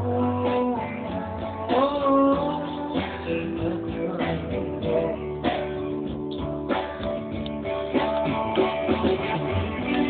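Instrumental break of a pop ballad: strummed guitar chords under a melodic guitar lead with bent notes.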